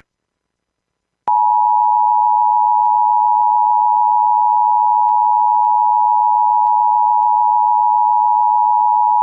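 Emergency Alert System attention signal: a steady, loud two-tone alarm (853 and 960 Hz sine tones) that starts after about a second of silence, runs for about eight seconds and cuts off sharply. It heralds a severe thunderstorm warning.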